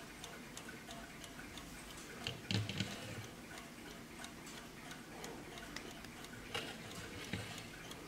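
Warmink mantel clock's movement ticking steadily. A louder brief knock comes about two and a half seconds in, with a couple of lighter knocks near the end.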